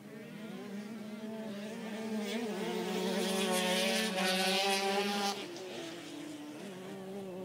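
125cc two-stroke ice-racing motorcycles buzzing at high revs on the circuit, the nearest one growing louder to a peak and then dropping away sharply about five seconds in, with another bike droning steadily in the background.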